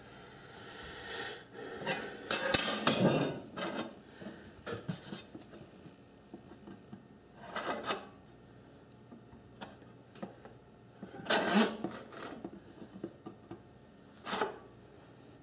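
A pointed metal scriber scratching lines along a steel rule into the non-stick coating of a metal pan, in about five separate scraping strokes. The longest and loudest comes first.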